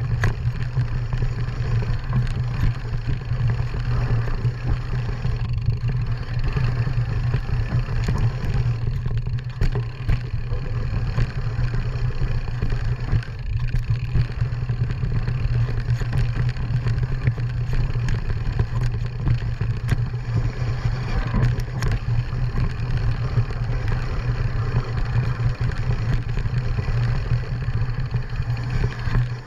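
Small off-road vehicle engine running steadily at a low, even pace, with frequent knocks and rattles as it rides over rough dirt trail.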